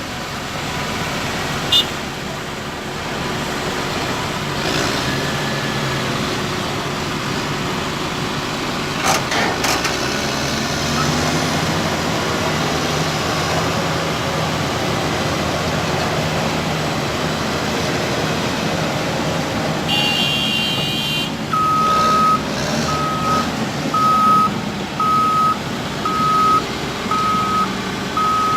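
Heavy diesel engines running steadily under load. About three quarters of the way in, a single-pitch reversing alarm starts beeping about once a second and keeps going.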